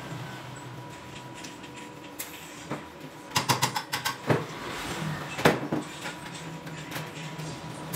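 Stainless steel tube pieces and brackets for a scooter center stand being handled and fitted on a metal workbench: a quick run of metallic clicks and knocks a few seconds in, then a few single knocks, over a low steady hum.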